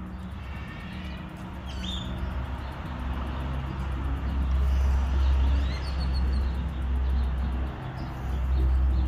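Wind rumbling on the microphone of a moving bicycle rider, growing louder about a third of the way in, with small birds chirping now and then above it.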